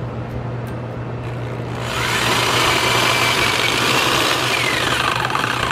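Corded Black & Decker electric drill starting about two seconds in and running at speed, its motor whine rising as it spins up, holding, then falling as it slows near the end while driving a screw into a wooden post.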